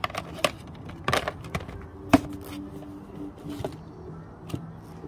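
Handling clatter of a plastic novelty telephone being put into a cardboard shoebox and the lid being put on: a string of irregular knocks and clacks, the loudest about two seconds in.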